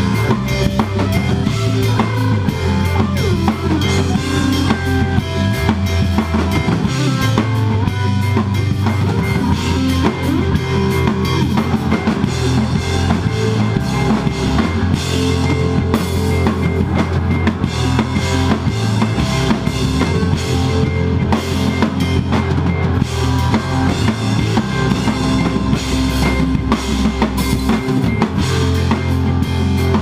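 Band playing live: a drum kit beating steadily under electric guitars.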